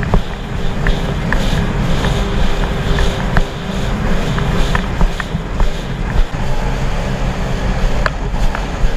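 Sea-Doo jet ski running under way on open water: a steady low engine and jet-pump rumble mixed with wind rush on the microphone, with scattered sharp splashes of spray against the hull.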